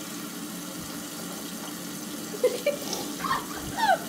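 Steady background hiss, then in the second half short wordless vocal squeals and groans with falling pitch, a reaction to a bad-tasting shot.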